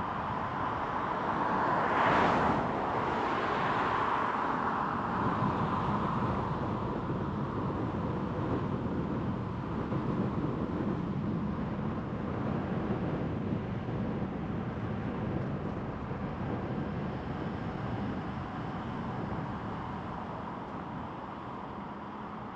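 Car driving along a road: steady engine and tyre noise, with a brief louder swell about two seconds in, easing off gradually toward the end.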